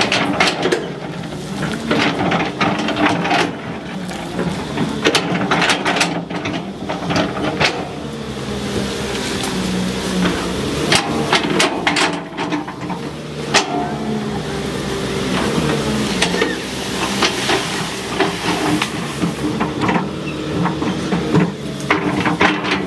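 Caterpillar 320C excavator's diesel engine running steadily under digging load while the toothed bucket scrapes and scoops soil, with frequent irregular clanks and knocks from the bucket and its linkage.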